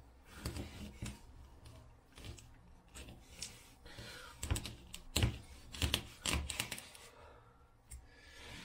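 A kitchen knife cutting steaks from a partly frozen chum salmon on a wooden cutting board: scraping as the blade goes through skin and scales, with a series of irregular knocks on the board, loudest about halfway through.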